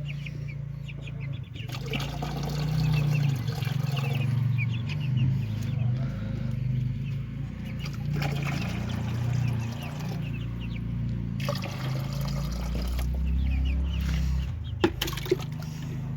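Chicks peeping in a poultry coop: many short high peeps over a steady low hum, with two sharp clicks near the end.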